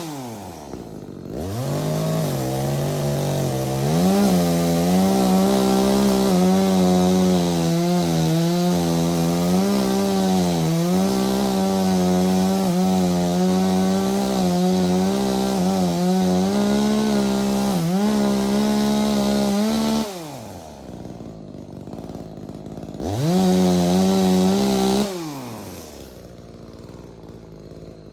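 16-inch chainsaw held at high revs and cutting into the tree trunk, its pitch wavering under the load of the cut for about sixteen seconds. It drops back to idle, revs up once more briefly, then settles to a low idle near the end.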